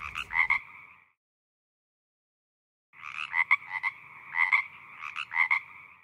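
Frog calls, rapid pulsed croaks: one short burst at the start, then about two seconds of silence, then three more bursts.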